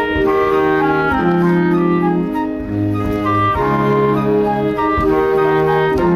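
School wind band of brass, woodwinds and drum kit playing a pop-song arrangement: full held chords that change every second or so, with occasional drum strikes.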